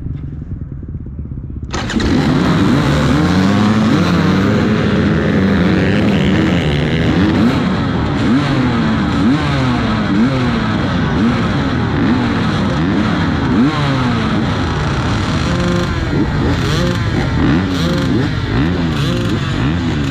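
A pack of off-road motorcycles starts up together about two seconds in, typical of a race start, then runs hard. Many engines rev and shift over one another, pitches rising and falling.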